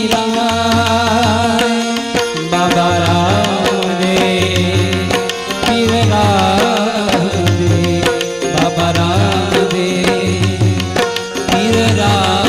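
Gujarati devotional aarti music: a harmonium melody over a steady, evenly repeating hand-drum beat.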